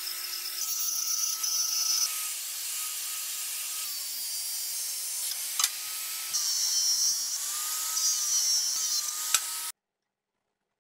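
High-speed electric power tool working material. Its motor tone dips in pitch several times as it bites in, over a loud hissing of the cut, with two sharp clicks.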